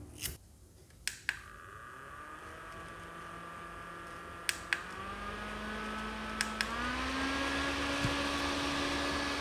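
Small clip-base mini fan switched on with a click of its button, its motor whine and rush of air spinning up. Two more double clicks a few seconds apart step it up through its second and third speeds, and each raises the pitch and the airflow noise.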